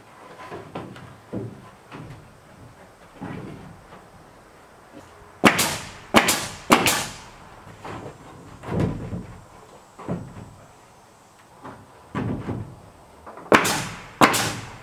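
DeWalt siding nail gun firing nails through rough-sawn boards into the wall framing: three sharp shots in quick succession about halfway through, then two more near the end. Quieter knocks and shuffling come from boards being handled and set in place between the shots.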